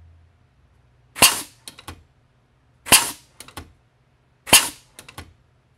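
Compressed-air blow gun fired three times, about a second and a half apart, into a homemade gas-key rig: each short, sharp blast of air shoots a wooden carrier out along a ball-bearing drawer slide, followed by a few quick clacks as the rubber bands snap it back.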